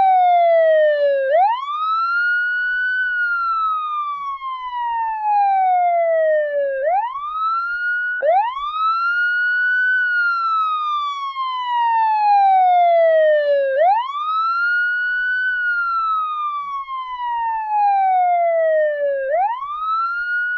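Police siren wailing: the pitch rises quickly, then slides slowly down over about five seconds, over and over.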